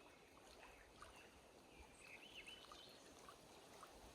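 Near silence: faint outdoor lakeside ambience with a few small clicks and one brief, faint, wavering high chirp about two seconds in.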